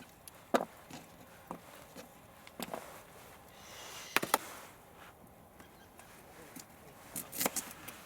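Irregular sharp knocks and clacks of hard objects, about half a dozen, with a close pair of louder ones a little past the middle and another near the end.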